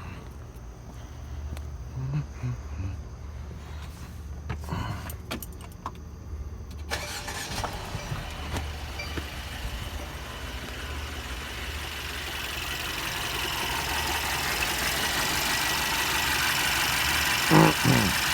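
Mercedes M274 four-cylinder petrol engine idling with a low steady hum, misfiring on cylinder 3, which has low compression. About seven seconds in, a rushing noise cuts in suddenly and grows steadily louder.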